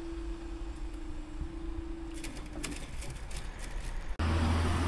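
Level crossing barriers rising: a steady mechanical hum that stops about two and a half seconds in as the booms reach upright, followed by a run of light clicks and rattles. Near the end it cuts suddenly to a louder, steady low rumble.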